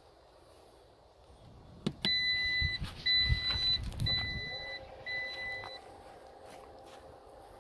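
Power liftgate of a 2022 Jeep Wagoneer: a button click, then its warning chime beeps four times at about one a second, and from about halfway the liftgate's electric motor whirs steadily.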